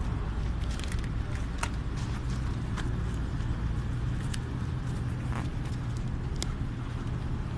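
A steady low engine hum, with a few faint scattered ticks over it.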